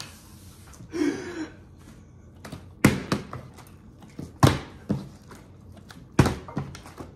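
A plastic water bottle being flipped and landing upright on a countertop. There are three hard thunks, one about every second and a half, each followed by a lighter knock.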